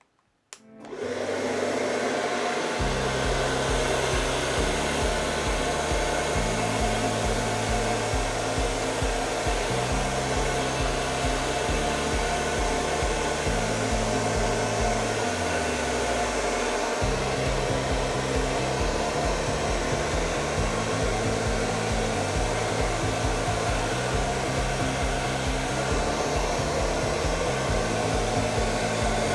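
Hair dryer blowing steadily on a low, cool setting, switched on about a second in, as it pushes wet acrylic paint across a canvas.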